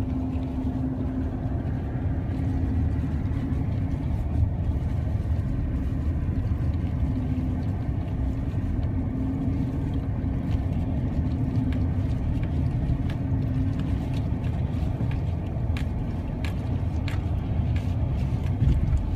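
Steady low road rumble and engine drone of a car driving, heard from inside the cabin, with a steady hum. Scattered sharp clicks come in over the second half.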